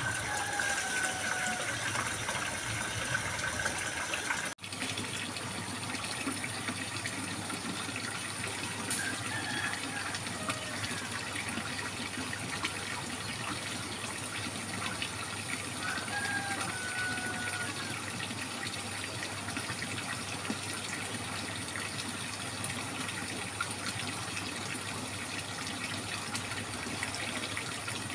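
Steady trickling and splashing water, running on evenly, with a brief drop-out about four and a half seconds in.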